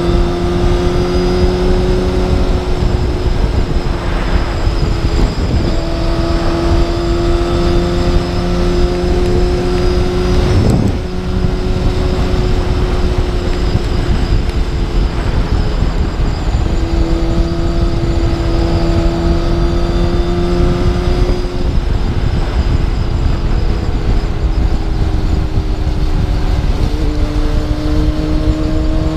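Kawasaki ZX10R superbike's inline-four engine cruising at steady revs, its pitch shifting a little every few seconds with the throttle, under heavy wind rush on the microphone.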